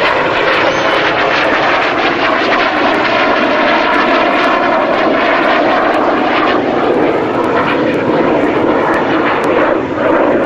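Fouga Magister jet trainer's twin Turbomeca Marboré turbojets flying past during a slow roll: a loud, steady jet rush whose tone shifts slowly as the plane moves.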